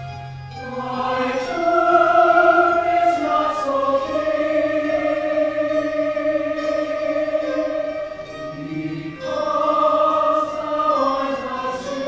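Mixed choir singing slow, sustained chords of an art-song setting with piano accompaniment. The voices come in about a second in, ease off briefly near the 9-second mark and come back in strongly, with sung 's' sounds hissing through twice.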